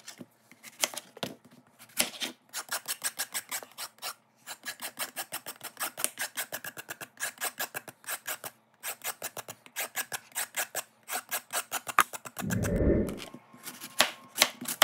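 Kitchen knife scraping the skin off a green gourd on a plastic cutting board in quick, rhythmic strokes, about six a second, with brief pauses. A dull low thump sounds a little before the end.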